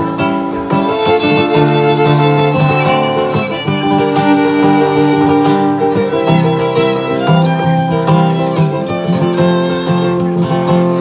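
Violin and acoustic guitar playing live together: the violin bows a melody of held notes over the guitar's picked and strummed accompaniment.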